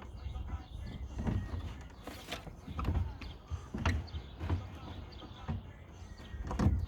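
Scattered light knocks and rubbing of a plastic tail light housing being pushed into place on the car body, its wires drawn through.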